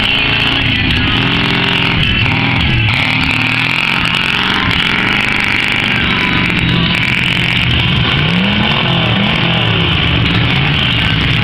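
4x4 mud-racing truck's engine revving hard, its pitch climbing and dropping again and again as it churns through the mud pit.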